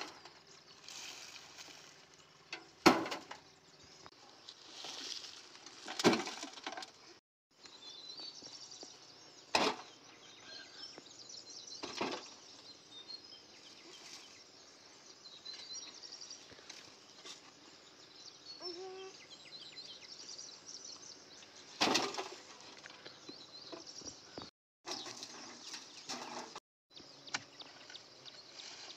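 Digging in hard, stony ground: a hoe chopping into rocky soil and stones knocking together, heard as a handful of sharp hits at irregular gaps.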